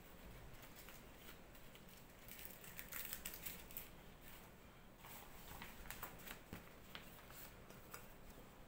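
Faint crinkling and rustling of a fresh green leaf being folded around cooked rice to wrap a parcel, in irregular soft crackles.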